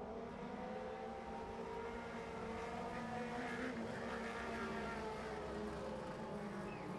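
Lightning Sprints race-car engines running together at a low, steady pace, a drone of several overlapping engine notes that rise and fall slightly.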